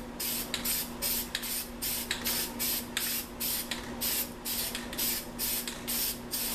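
Aerosol spray-paint can sprayed in a quick series of short hissing bursts, about two to three a second.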